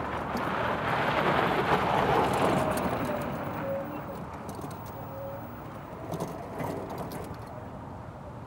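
Golf cart driving past over gravel, its tyre noise swelling to its loudest about two seconds in and then fading away.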